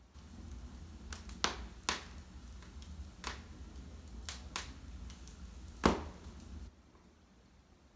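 Wood fire crackling in a fireplace: scattered sharp pops and snaps over a low rumble, the loudest pop about three-quarters of the way through. The low rumble cuts off suddenly shortly after that loud pop.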